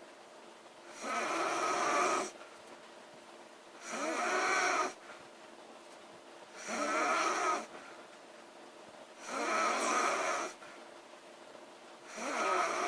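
A girl snoring in a steady sleep rhythm: five snores, each about a second long, roughly every three seconds.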